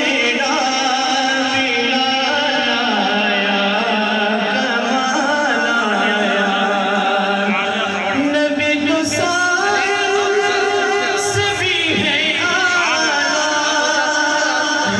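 Male voice singing a naat, an Urdu devotional song, in long held notes with wavering ornaments.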